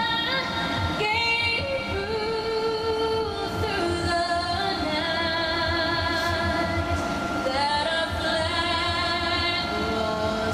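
Music with a woman singing long held notes that move from pitch to pitch.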